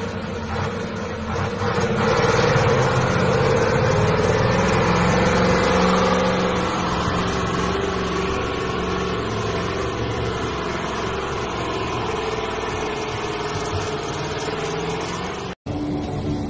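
A heavy dump truck's diesel engine labouring steadily as the truck ploughs through deep floodwater, with water sloshing and churning around the wheels. The sound cuts off abruptly about a second before the end.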